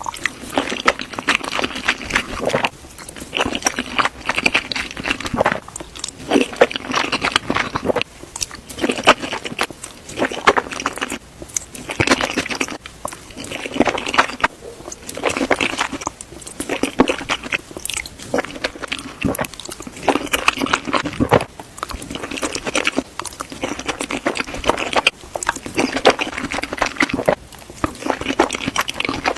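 Close-miked eating sounds of a person chewing and biting spaghetti with eggs and chicken, wet clicky mouth sounds coming in bursts every couple of seconds.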